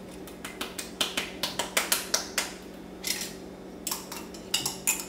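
Two runs of quick, sharp clicks and taps as a glass measuring cup is knocked and scraped with a utensil to empty chopped cherries into a mixing bowl.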